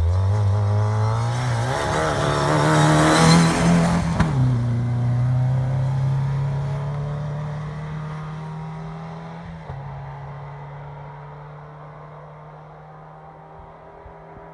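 Honda Recon ATV engine accelerating hard past at close range, its note climbing and loudest about three to four seconds in, dropping about four seconds in, then pulling away again with another step near ten seconds and fading steadily into the distance.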